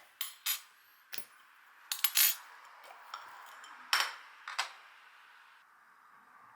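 A handful of short, light clinks and knocks of kitchen utensils and dishes, the loudest cluster about two seconds in.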